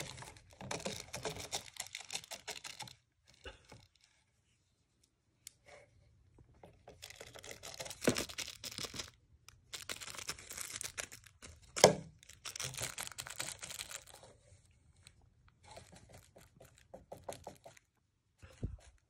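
A cat rummaging in a clear plastic candy box and the packaging around it: crinkling and rustling in several bouts, with a couple of sharp knocks, the loudest about twelve seconds in.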